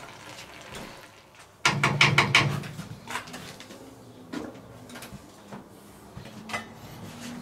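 Clatter of a wooden spatula against a cast-iron Dutch oven and a steel tray: a quick run of knocks just under two seconds in, then a few lone clicks.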